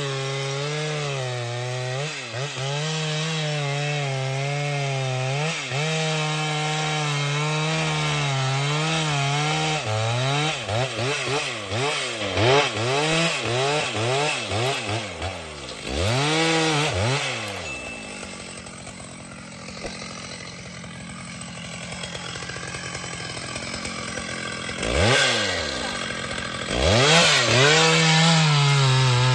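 Two-stroke chainsaw running steadily at high revs. It is then revved up and down repeatedly, drops to a low idle for several seconds, and is blipped twice before running steadily at high revs again near the end.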